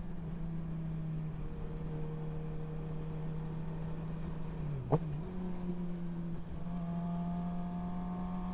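Suzuki GSX-R sportbike's inline-four engine running steadily at highway speed, heard from the rider's seat over road and wind rush. About five seconds in, the engine pitch dips briefly and there is a single sharp click. Near the end, the pitch climbs gradually.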